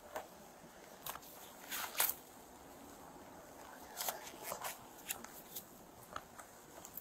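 Soft footsteps on a concrete walkway with the rustle and clicks of clothing and gear, heard through a body-worn camera: irregular short scuffs, the loudest about two seconds in.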